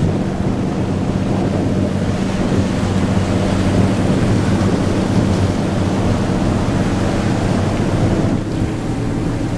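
Water rushing and churning along the hull of the moving car ferry Queen of Oak Bay, with wind on the microphone. A steady low hum runs underneath.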